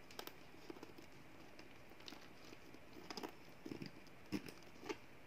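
Faint handling noise of a handbag: scattered soft clicks and rubbing as fingers work the bag and its metal clasp hardware, with a few sharper clicks in the second half.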